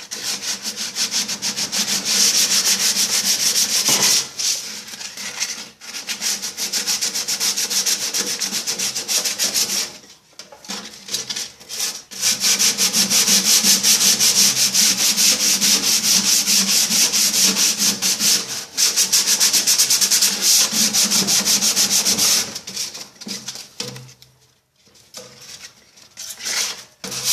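Sandpaper rubbed by hand against the painted metal wall inside a microwave oven's cavity, a fast continuous scratching that scours off rust and flaking paint. It breaks off briefly about ten seconds in and thins to scattered strokes after about twenty-two seconds.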